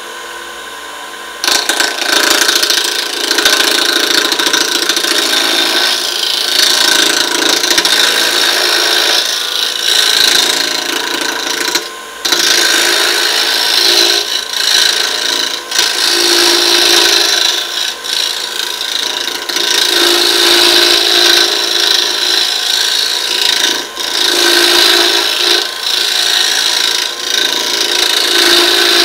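Wood lathe spinning a hickory handle while a hand-held turning chisel shaves it: a loud, steady rasping hiss of wood being cut over the hum of the running lathe. The cut starts about a second and a half in and drops out briefly twice as the tool lifts off.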